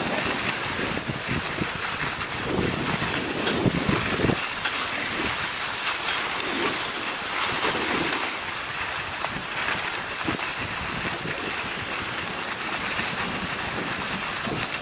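Skis sliding over groomed, packed snow with a steady hiss, mixed with wind rushing over the handheld camcorder's microphone.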